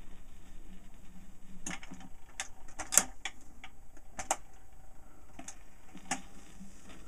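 Automatic record changer cycling between 78 rpm records: a low hum, then a run of mechanical clicks and clunks as the tonearm swings over and sets down on the next disc. The loudest clunk comes about three seconds in, and a few fainter clicks follow.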